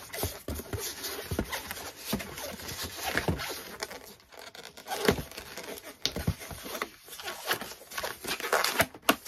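Inflated latex modelling balloons being tied and handled: irregular rubbing and crinkling of latex against latex and fingers, with a few short squeaks.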